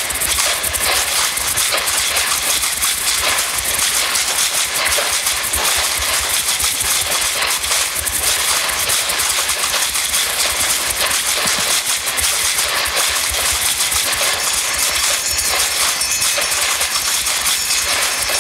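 Sound-art soundscape of steady, loud noise: a dense hiss over a low, rattling rumble that has a machine-like quality.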